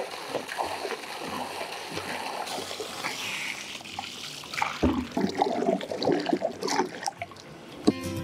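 Water from a garden hose splashing into a metal pot of carrots and spilling onto a stone slab. The splashing grows louder and more uneven about five seconds in.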